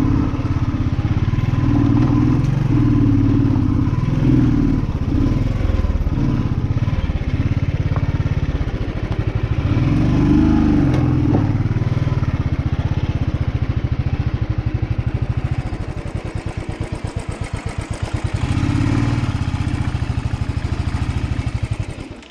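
Motorcycle engine running at low revs as it rides up a rough dirt track, the engine note rising and falling, then settling into a slower, even chugging and cutting off near the end.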